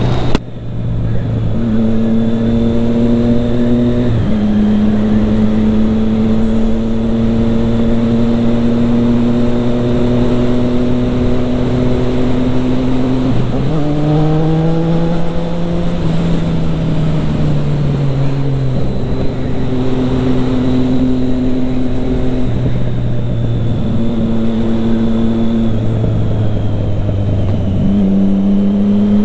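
Triumph Street Triple 675R's inline three-cylinder engine running through an Akrapovic exhaust while riding, at steady throttle with several steps in pitch, and one rise in revs about halfway through that then slowly falls away.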